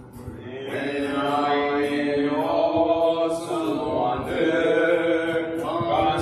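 A slow hymn being sung, with long held notes, swelling in loudness within the first second.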